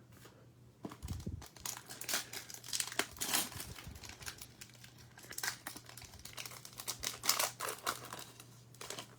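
Foil wrapper of a Select football trading card pack being torn open and crinkled, in irregular crackling bursts that start about a second in.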